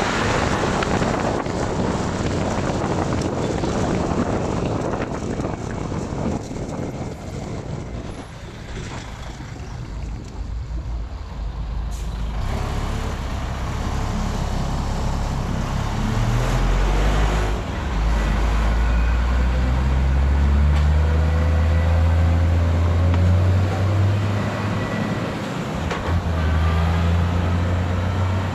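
Wind and road noise while riding along a highway. Then, in slow traffic, the deep diesel engine of a heavy truck running close by, its pitch climbing slowly as it pulls away.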